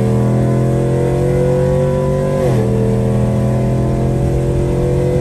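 Engine of the vehicle being driven, heard from inside the cab while accelerating on the highway. Its pitch climbs steadily, drops sharply at a gear change about two and a half seconds in, then climbs again.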